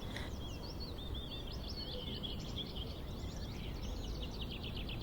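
Birds chirping and trilling, with a quick trill about four seconds in, over a steady low background noise of outdoor ambience.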